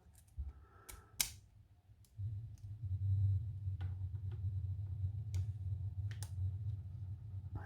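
A few small, sharp metallic clicks from a disassembled Medeco lock plug and its key being handled, with a low steady hum coming in about two seconds in.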